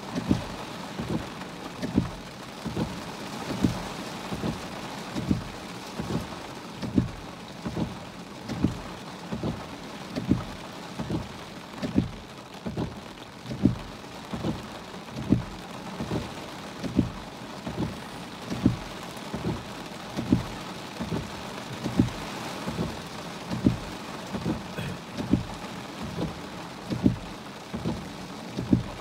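Heavy rain on a car's roof and windshield, heard from inside the car: a steady hiss with short, irregular low thuds, about two a second, from large drops striking the roof.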